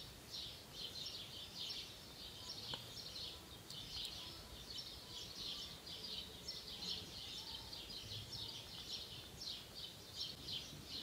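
Faint, high-pitched chirping in the background, repeated several times a second without a break.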